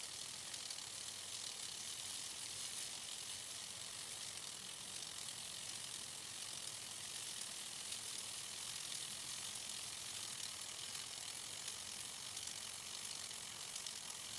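Vintage Paul Zeyssolff Model B lawn sprinkler running: a steady hiss of water spray with fine, rapid ticking from its eccentric-and-hook drive that turns the sprinkler.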